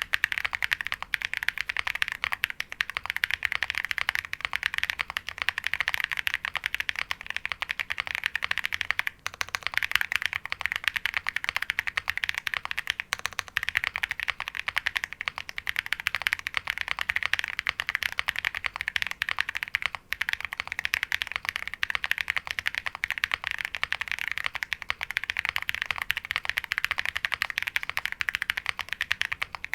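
Continuous fast typing on a Qwertykey QK65 mechanical keyboard with lubed Holy Panda tactile switches on an aluminium plate and PBT keycaps, a rapid stream of deep "thocky" keystrokes, with brief pauses about nine and twenty seconds in.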